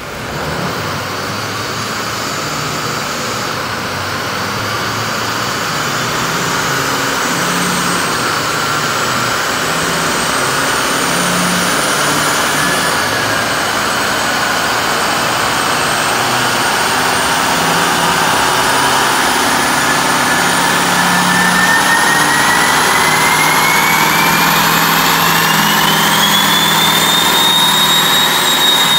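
Compound-turbocharged LML Duramax 6.6 L V8 diesel running under load on a chassis dyno, getting steadily louder. A turbo whistle rises sharply in pitch in the last third and levels off near the end.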